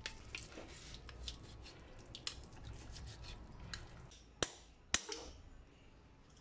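Kitchen knife cutting and scraping meat off a raw chicken thigh bone, with scattered light clicks and two sharp clicks about half a second apart a little past the middle.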